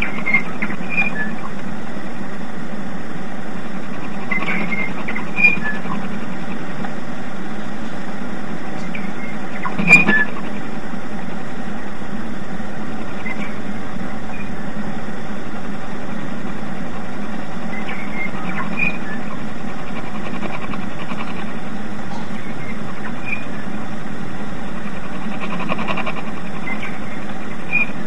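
Radio New Zealand International's shortwave interval signal, a looped recording of a New Zealand bellbird's song: short, clear, high notes in small groups every few seconds. They sit over steady shortwave static and hum, with a couple of sharp crackles.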